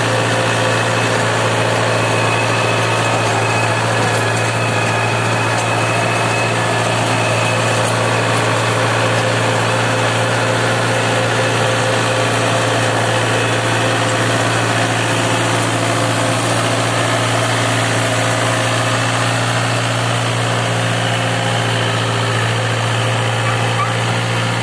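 Diesel engine of an Antonio Carraro TRX 7400 compact tractor running steadily at an even speed, with a constant low hum.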